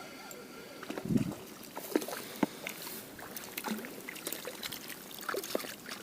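A hooked perch splashing as it is lifted out of the water, with dripping water, scattered clicks and a thump about a second in.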